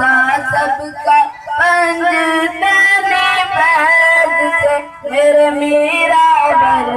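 A boy singing an Urdu naat solo into a microphone, unaccompanied, in long held and ornamented phrases, with a short breath about a second in and another around five seconds in.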